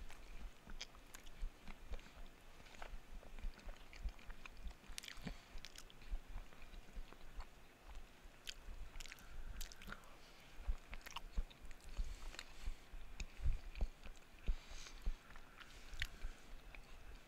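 Close-miked chewing and mouth sounds of eating, with many irregular small clicks.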